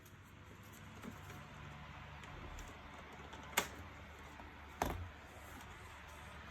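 Two sharp clicks of small hard parts being handled, about a second and a half apart, over a steady low hum.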